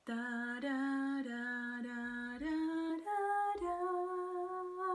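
A woman humming a slow hymn melody in 6/8 time, unaccompanied: a string of about eight held notes stepping up and down, the longest near the end.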